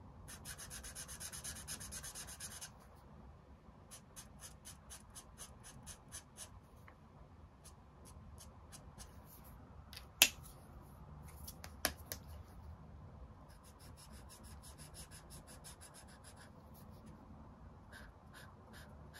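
Brush-tip marker rubbing on paper in runs of quick back-and-forth strokes as colour patches are filled in. A sharp click sounds about ten seconds in, with a softer one near twelve seconds.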